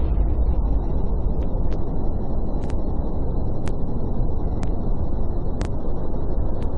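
Steady low background rumble of room noise, with a faint sharp click about once a second.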